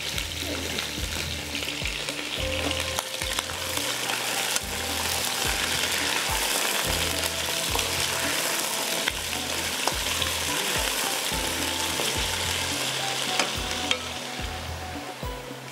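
Potato pieces frying in oil in a pan on a low flame, sizzling steadily while being stirred and mixed.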